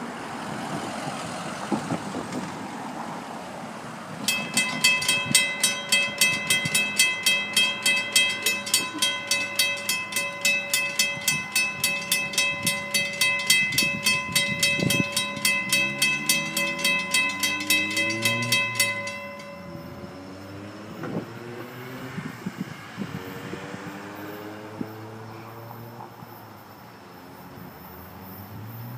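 Railroad grade-crossing bell ringing rapidly and evenly, about two to three strikes a second, starting about four seconds in and stopping a few seconds past the middle. After it stops, the approaching freight train is heard more faintly, with a few short rising tones.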